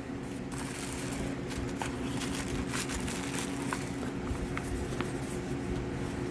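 Rustling, crinkling and light clicks of packaging and products being handled as a beauty subscription box is unpacked, over a steady low background hum.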